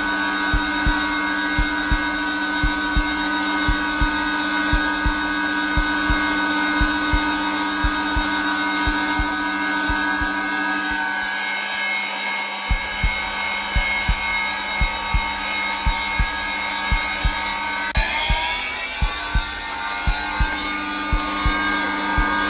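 Zelmer vacuum cleaner motor running steadily on its lowest setting, a whine with several steady tones, with a heartbeat's regular low thumps pulsing underneath. The thumps stop for about a second midway, and near the end the motor's whine glides upward in pitch.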